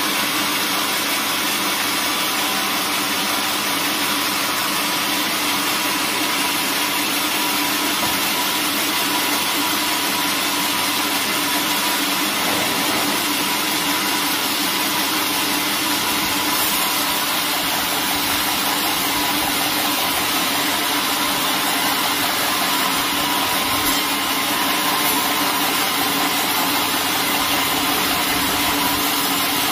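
Large band sawmill running steadily, its blade ripping lengthwise through a thick timber plank fed past on the carriage, with a constant machine hum under the cutting noise.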